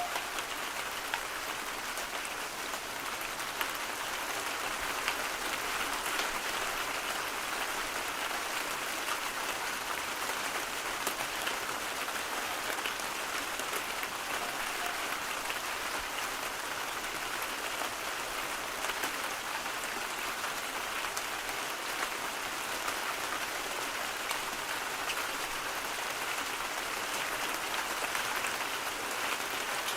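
Steady rain: an even hiss dotted with many small drop ticks.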